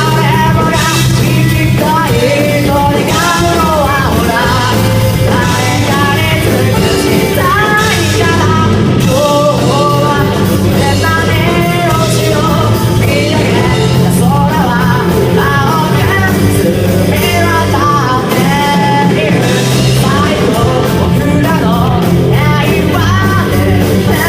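Loud rock song with a singer's voice over guitar, bass and drums.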